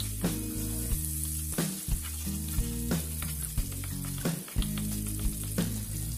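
Minced garlic sizzling in hot oil and butter in a nonstick frying pan, with a steady high hiss. A wooden spoon stirs it, knocking and scraping against the pan about once a second. Low sustained tones run underneath.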